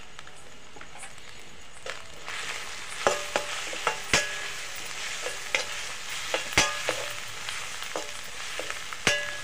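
Chopped onions and green chillies frying in oil in a metal kadai, sizzling louder after about two seconds as a metal spoon stirs in turmeric, with sharp ringing clinks each time the spoon strikes the pan.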